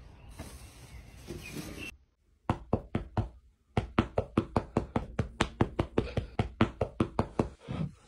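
A hand patting quickly and rhythmically on a bed, about five pats a second. It starts about two and a half seconds in with a few pats, pauses briefly, then keeps a steady beat until just before the end.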